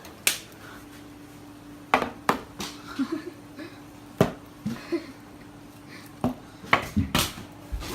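Plastic water bottle knocking and clattering as it is flipped at a door and lands and bounces on hard surfaces: a string of sharp knocks about a second apart, under a steady low hum.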